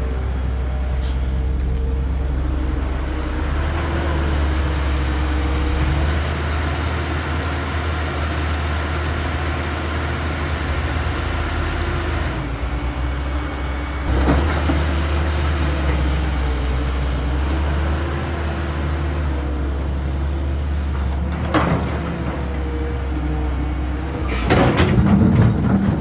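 Caterpillar excavator's diesel engine running steadily under load, with a hydraulic whine that shifts up and down in pitch as the machine works. Sharp knocks come about halfway through and again later, and a louder clatter comes near the end.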